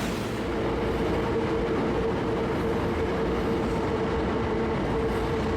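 Hankyu electric commuter train running, a steady rumble with a steady humming tone over it.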